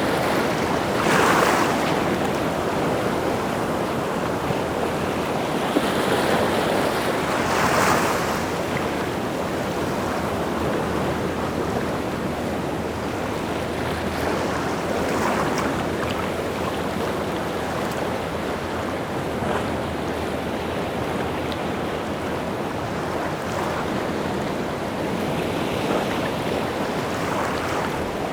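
Rough sea surf: waves breaking and washing in a steady rush, swelling louder every several seconds, with some wind.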